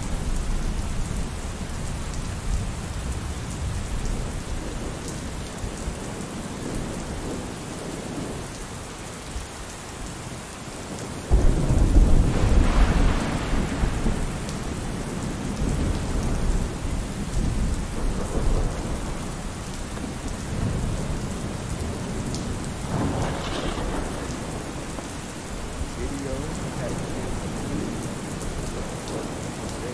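Steady rain with thunder. A loud, low rumble breaks in suddenly about eleven seconds in and fades over a few seconds, and a weaker rumble swells about twenty-three seconds in.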